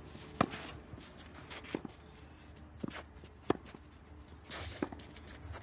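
Tennis ball struck by rackets and bouncing during a baseline rally on a clay court: about five sharp pops a second or so apart, the loudest about half a second in and about three and a half seconds in, with footsteps on the clay.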